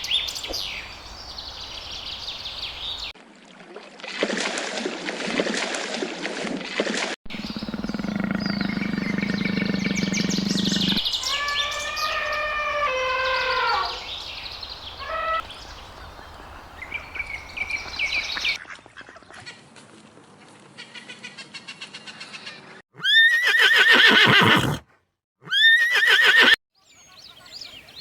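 A series of different animal calls, one after another, with abrupt cuts between them. Near the middle there is a drawn-out call that falls in pitch, and near the end come two loud bursts of rapid, sharp calls.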